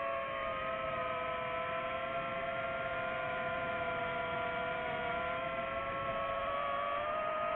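DJI FPV quadcopter's motors and propellers whining steadily, several tones drifting slowly in pitch as the throttle changes. One tone rises near the end.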